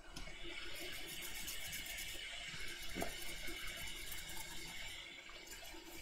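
Toothbrush scrubbing a hard-drive circuit board wet with isopropyl alcohol: a steady, rapid wet scratching of bristles over the board as the flux is cleaned off.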